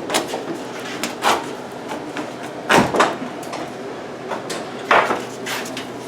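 Knocks, clunks and scraping as the black rubber windshield seal is worked off a 1963 Chevy C10 cab, with a handful of sharp clunks spread through it and the loudest two about three and five seconds in.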